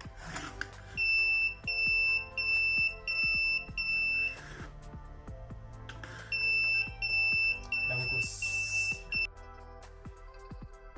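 Buzzer of an Arduino laser-beam alarm beeping in a high, steady tone about twice a second, in two runs of about five beeps with a pause of about two seconds between them. It sounds while the laser beam to the light sensor is broken. Music plays underneath.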